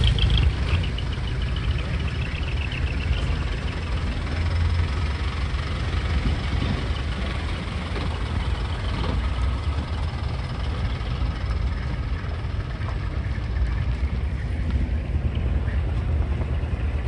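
Small Isuzu cab-over truck's engine running at low speed as it rolls slowly past, a steady low rumble.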